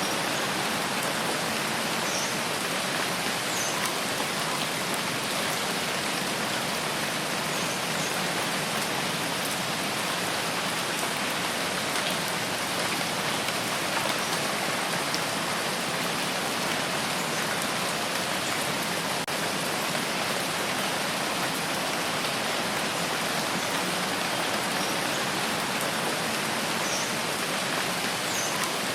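Steady rain falling, an even hiss without change in level. A few faint, short high chirps come through twice near the start and twice near the end.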